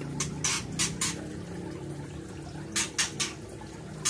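Aquarium water splashing and bubbling in short bursts, a few in the first second and a few more near three seconds in, over a steady low hum.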